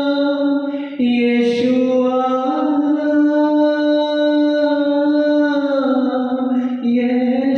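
A man singing solo into a microphone, a Hindi Christian worship song, drawing out a few long held notes that step and slide between pitches. No instruments are heard under the voice.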